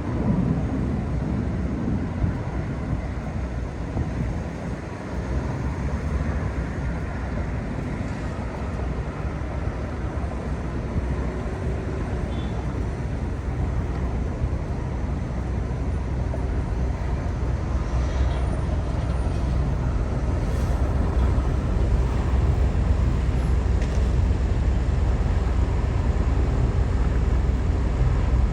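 Steady road and engine rumble of a car driving in traffic, heard from inside the car, growing slightly louder in the second half.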